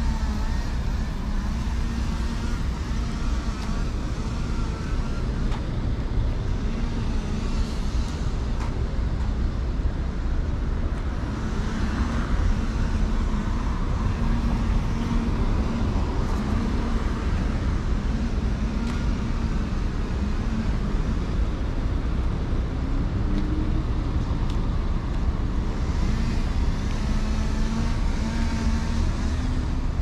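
Steady road traffic: a continuous low rumble of passing cars and buses, with engine hum rising and falling as vehicles go by.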